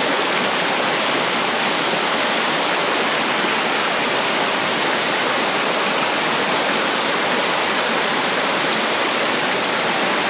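Steady rush of water from a small rocky mountain stream, running at an even level.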